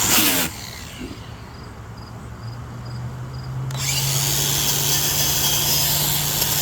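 Angle grinder with a wire wheel scrubbing rust off a cast iron brake rotor. The wheel comes off the metal about half a second in and the grinder spins on alone with a steady hum. It bites in again with a loud scraping hiss a little before four seconds in.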